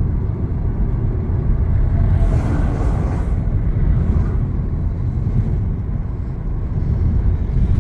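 Car cabin road noise while driving at highway speed: a steady low rumble of tyres and engine. About two to three seconds in, an oncoming truck rushes past in the other lane.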